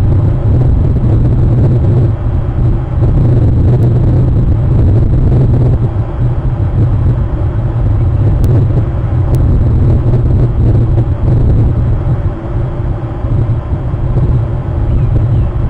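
A steady low rumble with a hiss above it, continuous and without distinct separate sounds.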